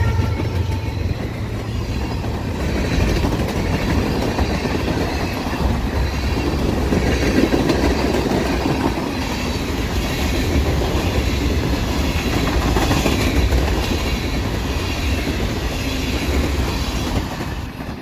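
Fast BNSF freight train's tank cars and covered hopper cars rolling past close by: a steady, loud noise of steel wheels on the rails that drops away near the end as the last cars pass.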